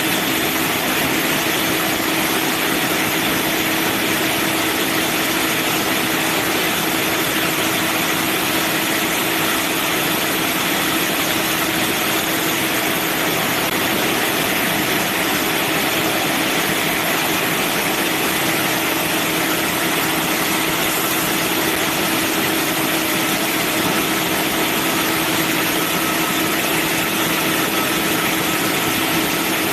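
Manual band sawmill running steadily, a constant mechanical drone with a steady hum and a broad hiss that does not change in level or pitch.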